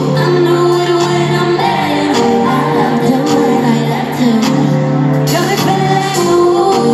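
Live pop music with a woman singing over the band, heard from the stands of an arena.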